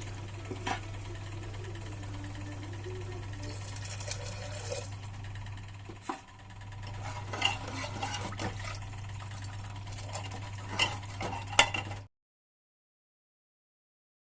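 Metal kitchen utensils clinking against a cooking pot, scattered clinks and scrapes as of stirring, over a steady low electrical hum. The sound cuts off abruptly near the end.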